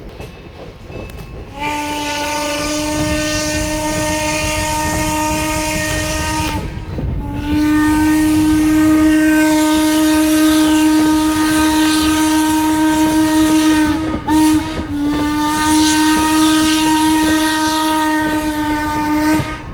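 Steam locomotive whistle of Norfolk & Western 4-8-0 No. 475 blowing long, long, short, long: the standard signal for a road grade crossing. The train rumbles along the rails underneath.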